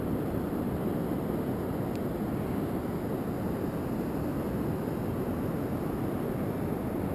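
Steady, even noise of ocean surf and wind buffeting the microphone, with no clear swells or breaks.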